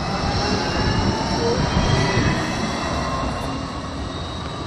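Gold Coast G:link light-rail tram, a Bombardier Flexity 2, pulling away from the stop. Its electric drive whines in several thin tones, some rising slightly, over a low rumble of wheels on rail. The sound peaks about two seconds in and fades as the tram moves off.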